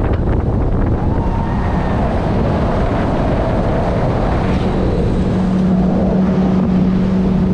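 Yamaha outboard motor running as the boat gets under way, with wind rumbling on the microphone; a steady engine hum comes through from about halfway in.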